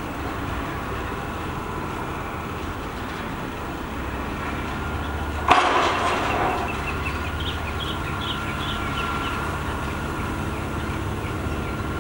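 Heavy construction machinery at a seawall pile-driving rig running steadily, with a single loud bang about halfway through that rings briefly.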